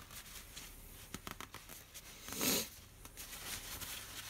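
Small handling noises on a workbench: a few light clicks and taps, and a brief rustle about two and a half seconds in.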